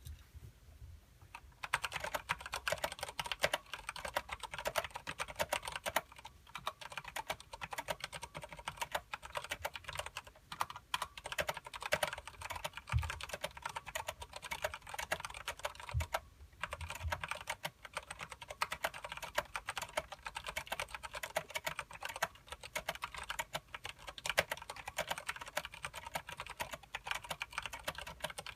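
Fast continuous typing on a mechanical keyboard with tactile Cherry MX Clear switches and thick PBT keycaps: a dense run of clicks and clacks. It starts about a second and a half in and stops briefly about halfway through. A few dull low thumps come about halfway through as well.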